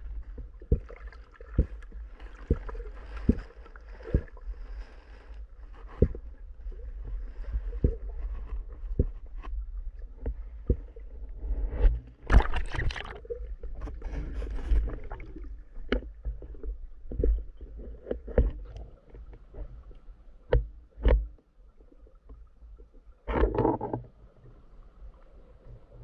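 Underwater sound picked up through an action camera's housing as a diver handles a speared Nile tilapia: a low rumble with scattered knocks and clicks, and two louder rushing bursts, one about twelve seconds in and one near the end.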